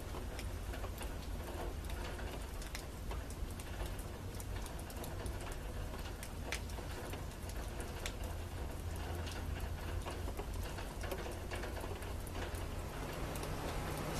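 Steady low background rumble with scattered faint clicks and ticks, a room or street ambience; a low steady hum comes in near the end.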